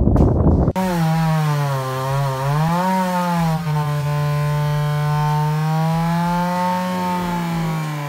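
Background music cuts off under a second in, giving way to a small engine running steadily, its pitch rising and falling slightly.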